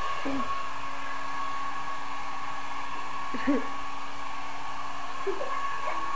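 Handheld hair dryer running steadily, with a constant whine, as it blows a wet dog's coat dry.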